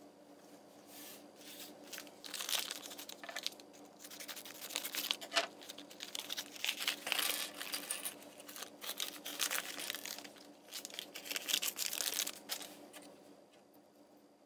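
Plastic foil blind bag of LEGO Minifigures being torn open and crinkled by hand: an uneven run of crackling, rustling tears and crumples that dies down near the end.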